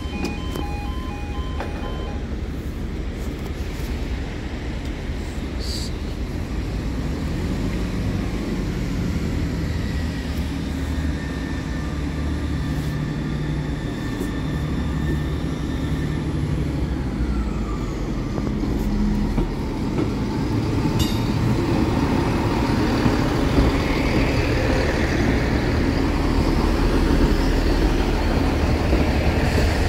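Level crossing alarm tones cut off about two seconds in. Then a four-car Class 158 diesel multiple unit approaches the crossing with its engines running and grows steadily louder, passing close by over the last few seconds.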